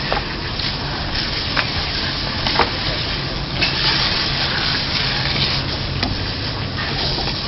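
Steady hiss of outdoor background noise with a low engine hum underneath, and a few sharp clicks.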